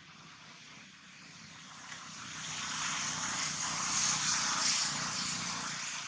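A passing engine, growing steadily louder to a peak about four to five seconds in, then easing slightly.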